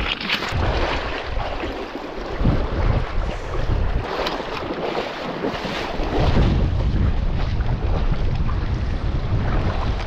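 Wind buffeting the microphone over the rushing of a fast, shallow mountain river, as a steady, gusting noise.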